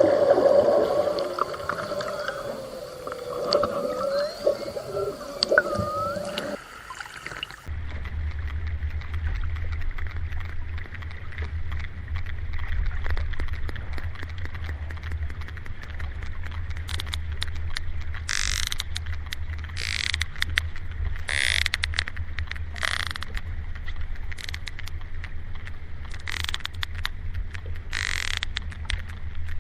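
Marine mammal vocalizations. For about the first seven seconds there are wavering, gliding calls. Then the recording changes to a steady low rumble with a series of short, separate noisy bursts later on.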